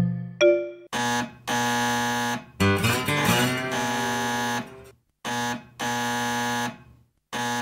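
Electric doorbell: a two-note ding-dong chime at the start, then the bell buzzing in about five long presses of different lengths, the middle one wavering and distorted. The bell is shorting out under repeated pressing and soon cuts the house's power.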